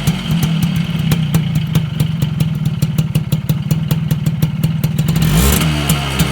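Suzuki AX100 two-stroke single-cylinder engine running on its original exhaust, set up to whistle. It runs steadily at idle with a rapid crackling tick, and the engine is briefly blipped up and back down about five seconds in.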